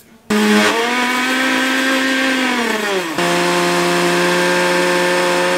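Countertop blender motor running hard, grinding a thick paste of sesame seeds, ginger and herbs into chutney. Its pitch sags about three seconds in, it stops for an instant and starts again at a steady, lower pitch.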